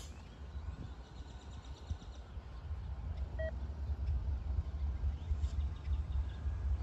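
Low diesel rumble of approaching locomotives, growing louder, with a short high beep about halfway through.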